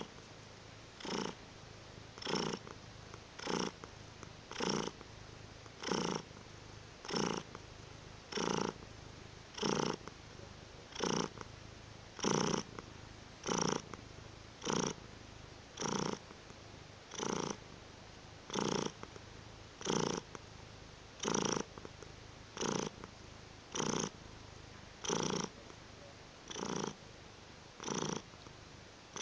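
Siberian cat purring close up, loud pulses repeating evenly about every second and a bit with its breathing.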